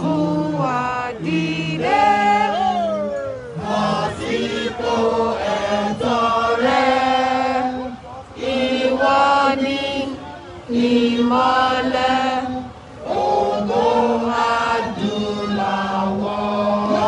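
A crowd of marchers singing a chant together in phrases, with short breaks between lines.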